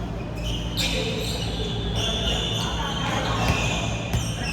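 Basketball bouncing and thudding on an indoor court during play, with short high squeaks, echoing in a large hall.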